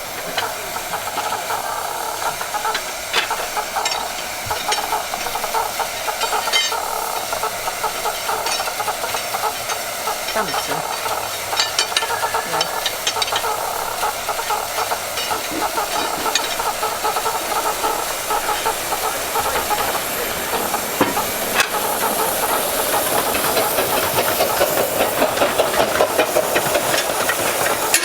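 Romney, Hythe and Dymchurch Railway steam train on the move: a steady hissing running noise with scattered clicks and rattles, getting louder near the end.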